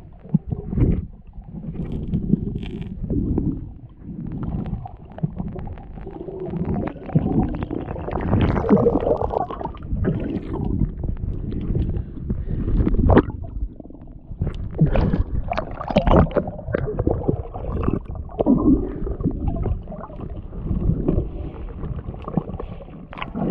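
Muffled, rumbling water sloshing and gurgling picked up by a camera held underwater in shallow sea water, with irregular knocks and bubbly splashes throughout.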